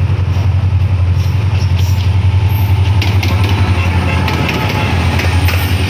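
HGMU-30 diesel-electric locomotive passing close under power while accelerating away from a station stop, its engine giving a deep, steady, pulsing throb. From about three seconds in, sharp clicks of the wheels over the rail joints join it.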